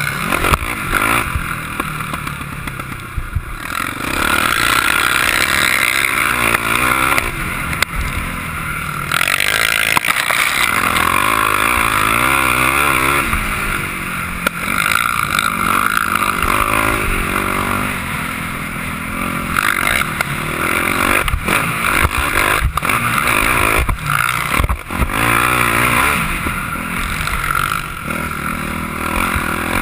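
Sport quad's engine revving up and down as it is ridden hard over a dirt track, heard from a camera mounted on the machine, with sharp knocks and rattles as it hits bumps.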